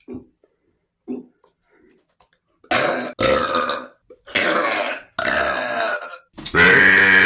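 A person burping loudly: after a couple of faint sounds, five long burps come one after another, starting about two and a half seconds in.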